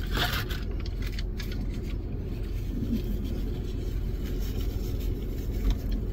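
Steady low rumble of a car idling, heard from inside its cabin, with a brief faint rustle near the start.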